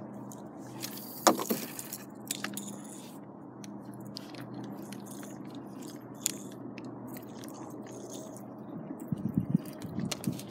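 Handling noise on a phone's microphone: fabric and fingers rubbing and knocking against it, with a sharp knock about a second in and a run of low thumps near the end, over a faint steady hum.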